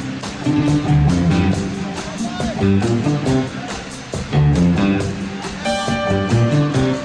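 Live rock band playing an instrumental passage: electric guitar and keyboards over bass and drums, with a held keyboard chord about six seconds in.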